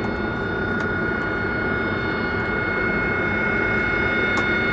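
Jet engine running steadily on a flight line: an even rushing noise with a high, constant whine.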